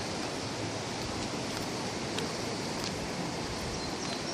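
Steady rushing of a fast-moving river in flood, an even hiss of water.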